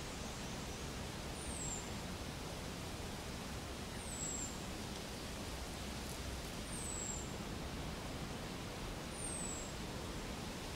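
Steady outdoor hiss of forest ambience, with a thin, very high call falling in pitch repeated four times, about every two and a half to three seconds.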